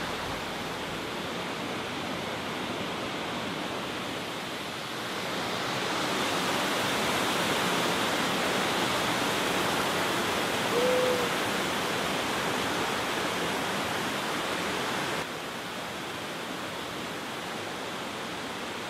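Steady rush of a waterfall and water pouring over rocks. It swells about five seconds in and drops off suddenly near the end.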